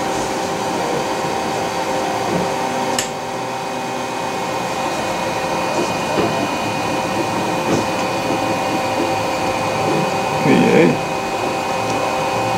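Raise3D N1 3D printer running a print at high speed: a steady fan whir and the whine of its stepper motors as the print head moves over the part. There is a brief louder burst about ten seconds in.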